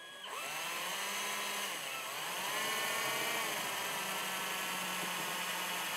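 Cordless drill with a 3/16-inch bit drilling out a rivet hole through the snowmobile's tunnel: a steady motor whine whose pitch sags and recovers a couple of times as the bit bites under load.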